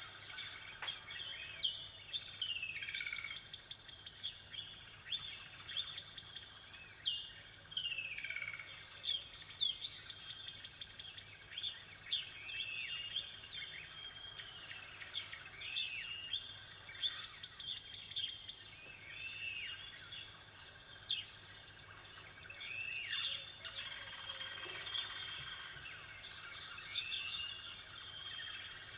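Songbirds singing: repeated fast high trills a second or two long, mixed with many short downward-slurred whistled notes.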